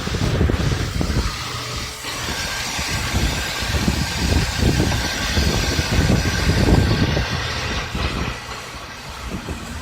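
Car engine cranking on its electric starter with a steady whine, the low end pulsing unevenly as the engine turns over without catching. The car won't start.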